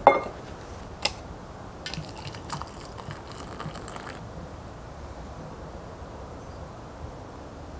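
An enamel mug knocks down onto a wooden worktop, with a smaller click about a second later, then water is poured from a stainless steel kettle into the mug for about two seconds.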